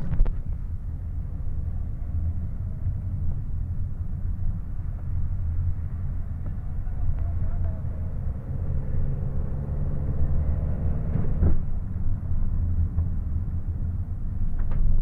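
Car driving along, heard from inside the cabin: a steady low rumble of road and engine noise.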